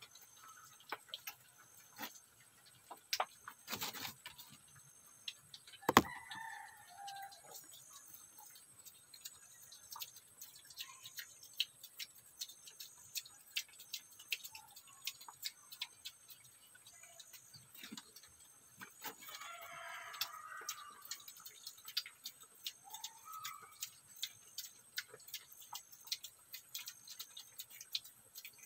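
Piglets eating dry feed off a concrete floor, a steady scatter of small irregular crunching clicks, with one sharp knock about six seconds in. A few chicken calls sound in the background, the longest about twenty seconds in.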